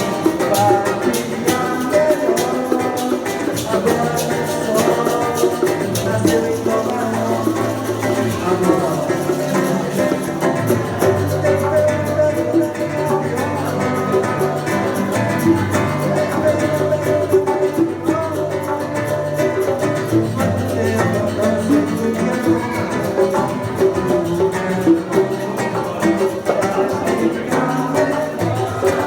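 Live acoustic guitar (violão) strumming and picking a Latin-style groove, with hand percussion clicking steadily along.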